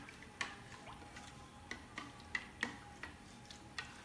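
Metal spoon stirring a liquid mixture in a glass bowl, clinking against the side about three times a second at an uneven pace.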